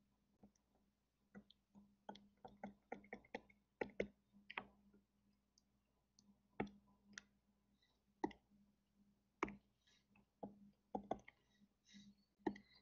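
Faint, irregular clicks and taps, about two a second, from a stylus tapping on a tablet screen while handwriting, over a faint steady hum.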